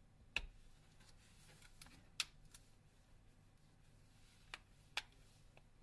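Plastic back cover of a Microsoft Lumia 550 being pressed onto the phone, its clips snapping into place: several sharp, separate clicks a second or two apart.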